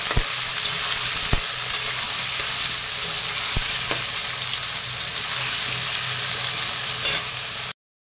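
Diced potatoes sizzling steadily in hot oil in a metal wok while a spatula stirs them, with a few short knocks and scrapes of the spatula against the pan. The sizzle cuts off abruptly near the end.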